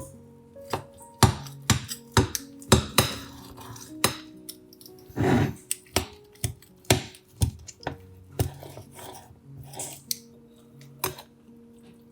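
Utensils knocking and clinking against dishes: about a dozen sharp, irregular knocks, with a short scrape about five seconds in. Soft background music plays underneath.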